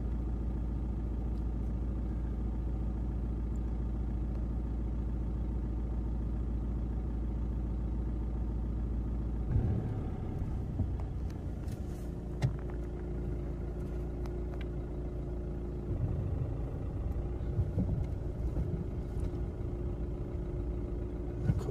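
Car engine idling, heard from inside the cabin; about ten seconds in the sound changes as the car begins to roll slowly along a rough dirt track, with a few short knocks.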